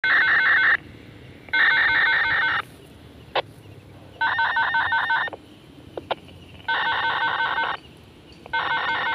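Electric bell ringing in five bursts of about a second each, with pauses of about a second between them, its striker rattling rapidly within each burst. Two short sharp clicks fall in the pauses.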